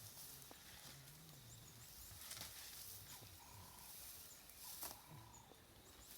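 Near silence: quiet outdoor ambience with faint scattered high chirps and a few short calls.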